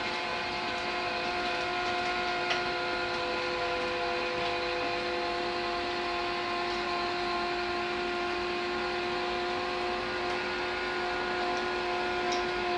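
Electric power bed-lift motor in an RV garage running steadily with a constant whine while it raises the bunk beds toward the ceiling.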